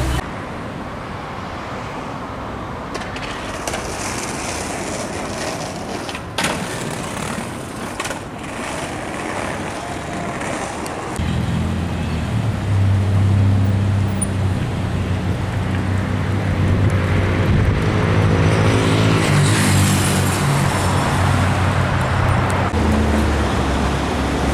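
City street traffic noise. About eleven seconds in, a large vehicle's engine comes up close and its low hum runs loud through the rest.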